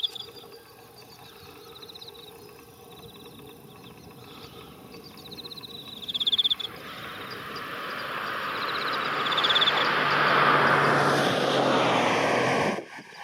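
A passing vehicle whose noise swells to a peak about ten seconds in, over short high-pitched trills that repeat every few seconds, typical of singing insects. The sound cuts out abruptly near the end.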